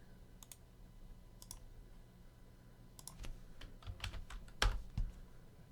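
Scattered clicks and taps on a computer keyboard, irregular and fairly faint, with a couple of louder knocks about four to five seconds in.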